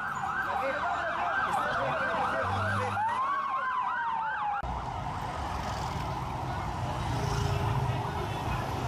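Ambulance siren in a rapid yelp, about three sweeps a second, with a second siren's slower wail rising and falling over it about three seconds in. Both sirens cut off suddenly about halfway through, leaving steady street traffic noise.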